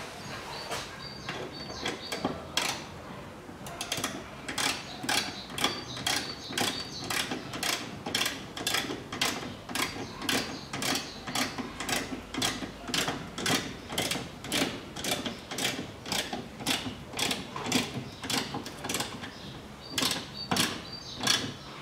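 Small ratchet wrench clicking as it is swung back and forth, about two clicks a second, tightening the clamp bolt that holds the new fuel filter. The clicking starts a few seconds in and runs steadily until just before the end.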